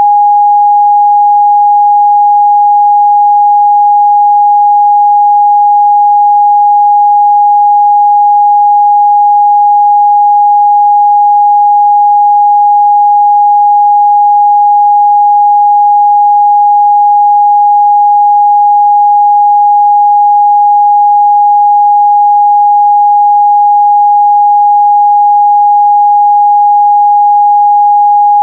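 A pure 824 Hz sine-wave test tone, held steady and loud at one pitch with no other sound.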